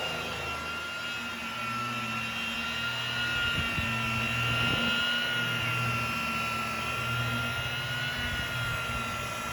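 Electric polisher running steadily on the aluminium fuselage, a high motor whine that wavers slightly in pitch over a low hum.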